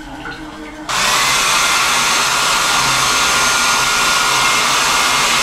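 Handheld hair dryer switched on about a second in, then blowing steadily at full power with a loud, even hiss and a faint whine.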